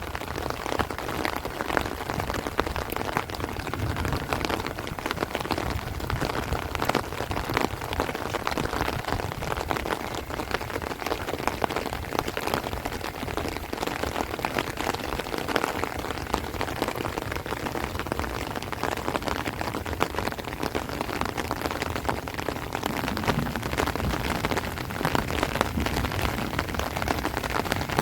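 Heavy rain falling on rice plants and trees: a steady, dense patter of drops that neither builds nor eases.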